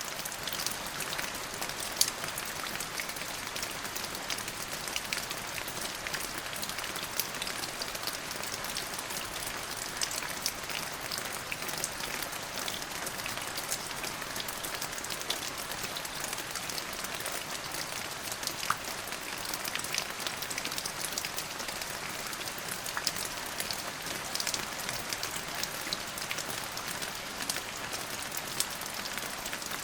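Steady rain falling on a hard surface, an even hiss with many close, distinct drop ticks scattered through it.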